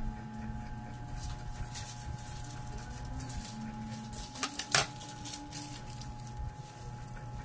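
Light handling sounds of a metal spoon spreading cheese spread on bread: faint scrapes and a few small clicks, with one sharper click of the spoon a little past halfway through, over a steady low hum.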